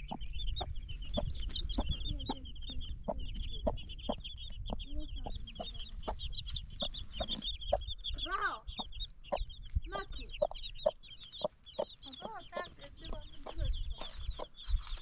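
A hen and her young chicks: the chicks peep steadily and fast while the hen gives short, repeated clucks.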